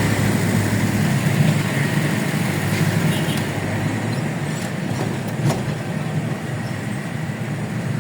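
Engine and road noise of a moving vehicle heard from inside the cab, a steady low drone, with a couple of brief clicks around the middle.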